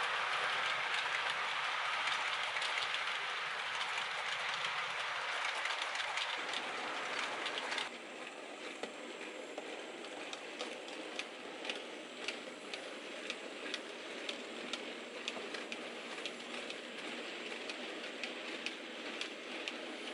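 Model railway train running along the track with a steady rolling rush of its wheels. About eight seconds in, the sound changes abruptly to a quieter run, with a steady series of sharp clicks as the wheels pass over the rail joints.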